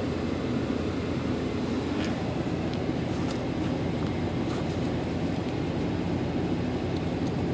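Steady low rumble inside a vehicle's cabin, with a few faint crinkles of a paper slip being unfolded.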